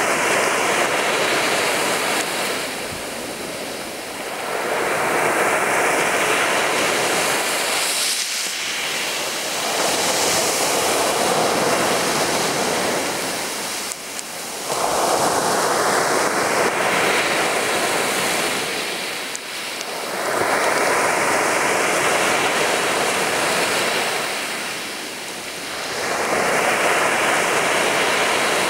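Sea waves breaking on a beach, each one swelling and washing out in a slow rhythm, roughly one every five to six seconds.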